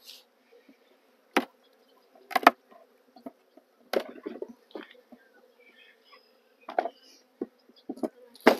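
Honeybees buzzing around an opened hive in a steady low hum, broken by about five sharp knocks and clatters of the wooden hive boxes and frames being handled.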